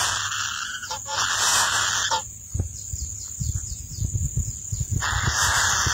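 Kingfisher nestlings in a tree-hollow nest giving harsh, hissing begging calls. The calls break off after about two seconds, leaving low scuffling and knocks while a chick handles a lizard, and resume near the end.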